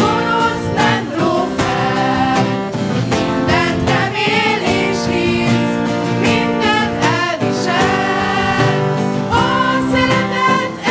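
Group of singers performing a Christian worship song into microphones, accompanied by acoustic guitar, at a steady, loud level.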